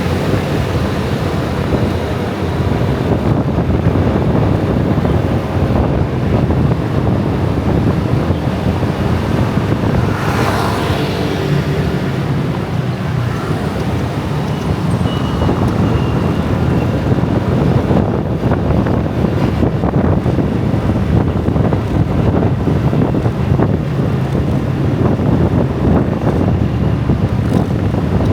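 Dense motor-scooter and car traffic streaming past, a steady low rumble of many small engines and tyres, with wind buffeting the microphone. A brief swish rises and falls about ten seconds in.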